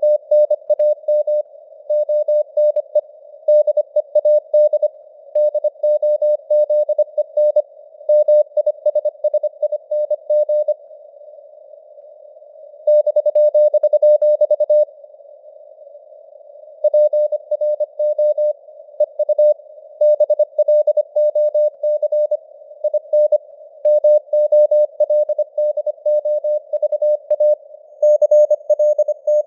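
Morse code (CW) sent at 25 words per minute: a single steady tone keyed on and off in quick dots and dashes over a band of simulated radio hiss. The hiss stays alone in the short gaps between words and in two longer pauses about halfway through.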